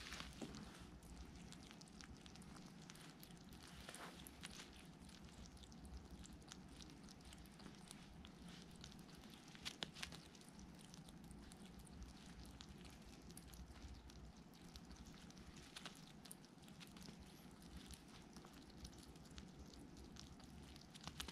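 Faint, irregular crunching clicks of a hedgehog chewing food from a bowl, with a few louder clicks about 4 and 10 seconds in, over a low steady hum.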